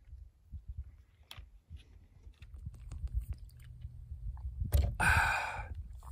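A man drinking gulps of water from a plastic bottle, with small clicks and mouth sounds, then a short breathy exhale about five seconds in.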